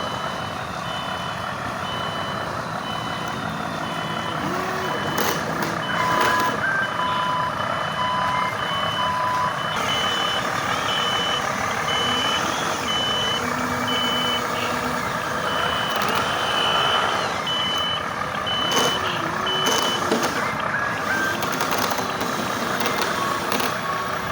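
Truck reversing beeper sounding in a steady on-off pattern over the running noise of the truck's engine. A second, lower beeper pulses for a few seconds about six seconds in. The high beeping stops a few seconds before the end.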